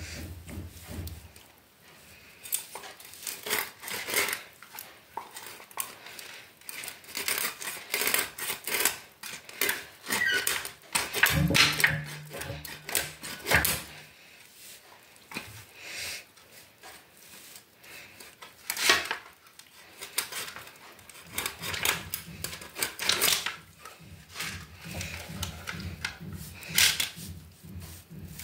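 Scissors snipping through a whole fish and clicking and scraping against a stainless steel bowl as it is cleaned: irregular sharp metallic clicks and scrapes with wet handling in between.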